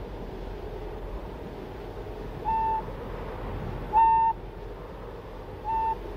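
A wall-mounted radio set's call tone beeping three times, short single-pitched beeps about one and a half seconds apart, signalling an incoming call. A steady low rumble runs underneath.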